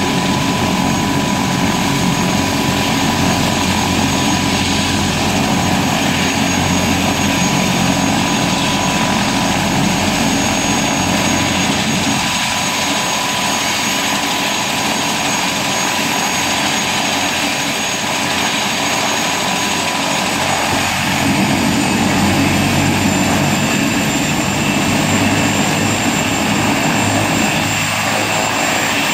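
Eurocopter AS350 helicopter running on the pad with its main rotor turning: a steady turbine whine over the rotor's low rumble. The highest whine climbs slightly in pitch over the last several seconds.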